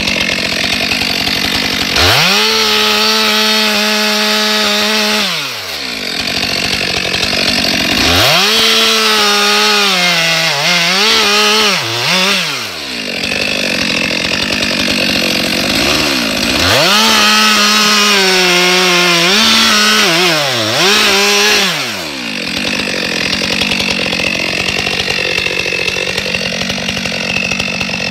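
Stihl MS 462 C chainsaw, a 72 cc two-stroke, cutting through a log. It runs at high revs in three stretches of a few seconds each, its pitch dipping now and then as the chain loads up in the wood, and runs lower between them.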